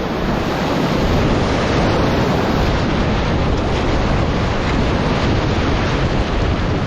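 River whitewater rushing in a steady, loud wash, with wind buffeting the microphone.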